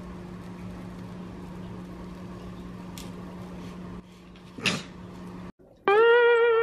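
Quiet kitchen room tone with a steady low hum, then a fork cutting down through crepe cake and scraping the paper plate, a short scrape about 4.7 s in. Background music comes in near the end with a held note.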